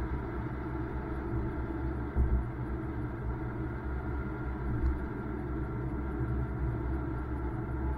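BMW M2's turbocharged straight-six running steadily under way, with road noise, and a brief thump a little over two seconds in.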